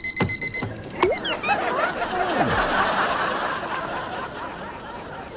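An alarm clock's repeated electronic beeping stops about half a second in. A sharp click follows, then studio audience laughter swells and slowly dies away.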